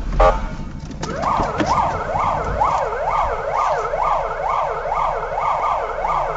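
Police car siren wailing fast, its pitch sweeping up and down about twice a second, starting about a second in. A sharp, loud knock comes just before the siren starts.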